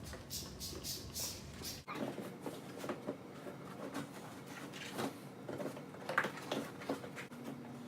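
Hands working a Maxxis Minion tire and its bead onto a mountain bike rim over a CushCore insert: a quick run of short scrubbing strokes, then scattered soft knocks and clicks of rubber against the rim.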